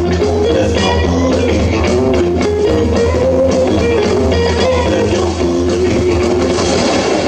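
Instrumental passage of a blues-rock song: a guitar plays a melodic line over a steady bass and drums.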